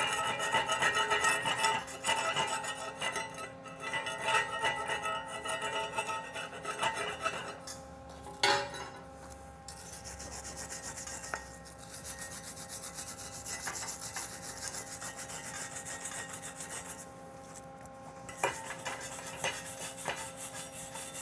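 Slag being chipped and scrubbed off a 7018 stick weld on steel plate: quick chipping-hammer taps that set the plate ringing, a sharp knock about eight seconds in, then a wire brush rasping across the weld in long scrubbing spells, with a short break near the end.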